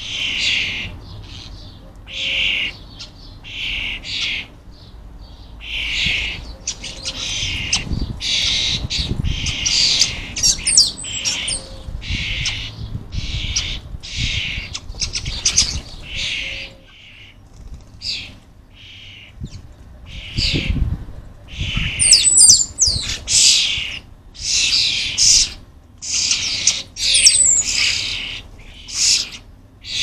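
Young European starlings begging, calling again and again in harsh, rasping calls that each last under a second, with a few thin whistled notes mixed in.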